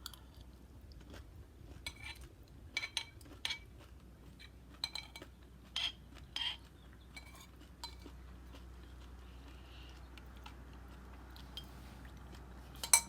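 Spoon clinking against a cereal bowl, a scattered series of short clinks with the loudest near the end.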